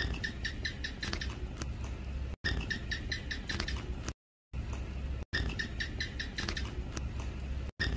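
House gecko (Hemidactylus) chirping: a series of short, dry clicking chirps over a steady low hum, broken by a few brief silent gaps.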